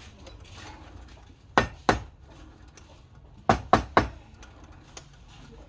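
Sharp metallic knocks of a metal chuck key or bar on a wood lathe's chuck while it is tightened on a square wooden blank: two knocks about a second and a half in, then three quicker ones about three and a half seconds in.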